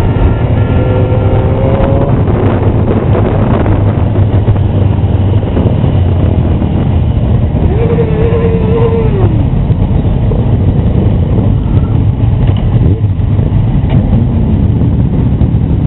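Motorcycle engines running in a group ride, heard from a moving motorcycle: a loud steady low rumble, with one engine revving up, holding and dropping back about eight seconds in.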